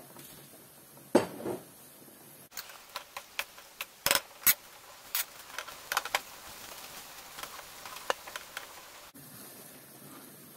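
Irregular clicks and pops from a frying pan of onion, carrot and tomato paste cooking in oil, with a single knock about a second in.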